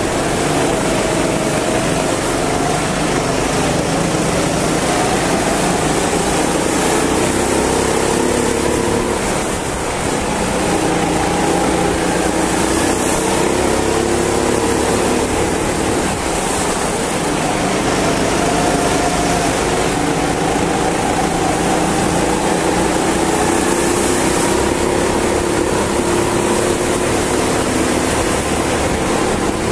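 Indoor rental go-kart engine running flat out, heard from on board, its pitch wavering up and down as the kart accelerates and slows through the corners, over a steady rush of noise.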